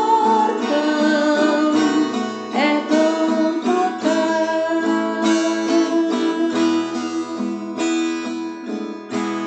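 Acoustic guitar music, plucked and strummed, with a held melody line over it.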